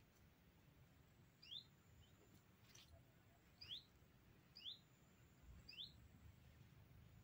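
Faint bird calls: a short call repeated four times, each a brief high note followed by a quick upward sweep.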